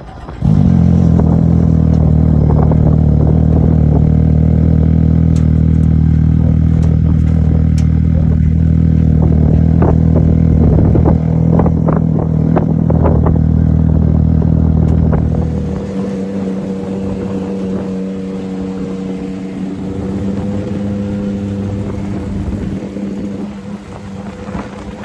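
Off-road race vehicle engine running loudly and steadily, with scattered clicking ticks over it. About fifteen seconds in it gives way to a quieter, steady engine drone.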